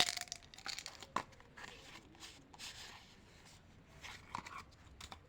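Candy and chocolate wrappers crinkling and tearing, loudest right at the start, with scattered crackles and a sharp click about a second in.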